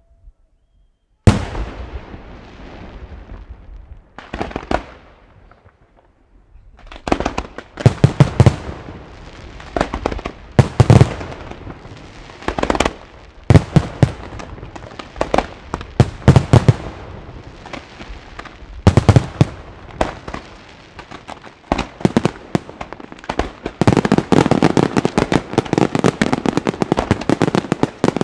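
Luigi Di Matteo professional fireworks display. One sharp bang comes about a second in and fades away. After a few seconds of lower noise, clusters of loud shell bursts follow every second or two, and near the end they build into a dense barrage of rapid reports.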